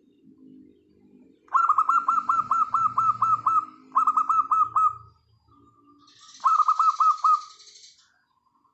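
Zebra doves cooing softly in low phrases, cut across by three loud bouts of rapid, evenly repeated high bird notes, about five a second, each note falling in pitch. The bouts start about one and a half seconds in, near the middle, and about two seconds from the end.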